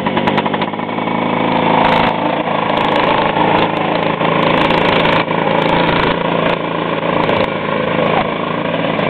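Small engine of a child's snowmobile running steadily as the machine creeps along at walking pace.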